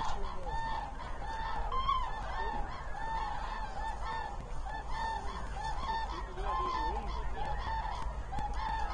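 A large flock of common cranes calling, many short calls overlapping into a continuous chorus, each call rising and falling in pitch.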